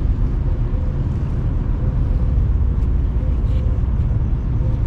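Wind buffeting the microphone: a loud, rough, steady low rumble, with a faint steady hum above it.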